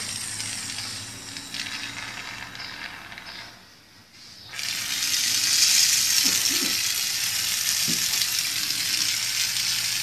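Freshly lit oxy-gas micro brazing torch (microautógena) hissing. The hiss is softer at first, dips almost away about four seconds in, then comes back louder and holds steady.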